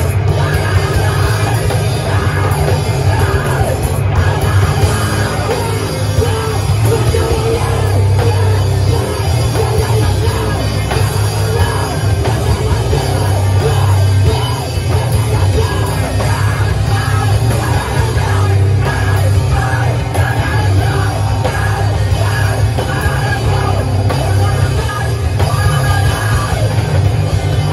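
Live band playing loud, distorted rock music with a drum kit and shouted vocals.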